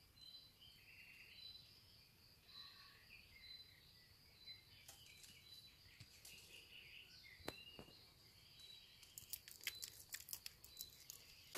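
Near silence with faint woodland birdsong: a short high note repeating every second or so among a few other chirps, then a cluster of light clicks and rustles near the end.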